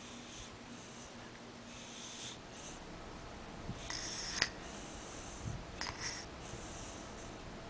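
Snoring: a run of hissing breaths, with a sharp click about halfway through and two smaller clicks shortly after.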